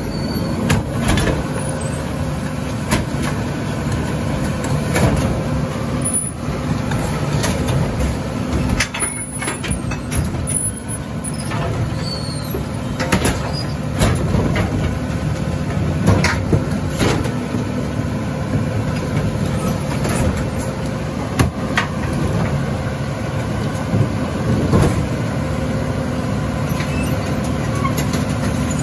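Mack LR rear-loader garbage truck running steadily, with frequent irregular knocks and clanks over the engine sound.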